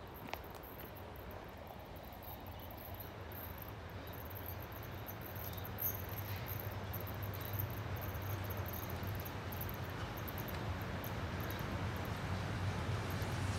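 Steam-hauled train approaching from a distance: a low rumble that grows steadily louder, with high-pitched insect chirping throughout.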